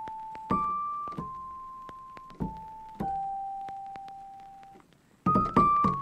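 Background music: slow, single piano-like keyboard notes, each struck and left to fade, with a quick run of notes about five seconds in.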